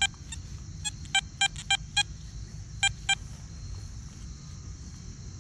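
XP Deus metal detector sounding about ten short, evenly pitched beeps in quick succession as the coil is swept back and forth over a buried target, stopping about three seconds in. The signal is the high-conductor hit that the detector reads as a solid 86.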